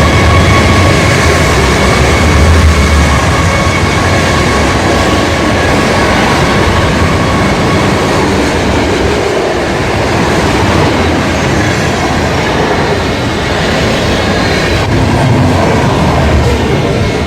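Union Pacific intermodal freight train passing close by: a loud, steady rumble and clatter of wheels rolling over the rails. A few high steady tones sound over it in the first few seconds, then fade.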